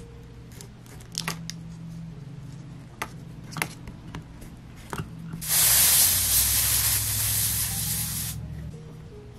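A few light clicks and taps, then a loud spraying hiss lasting about three seconds, starting about five and a half seconds in and cutting off.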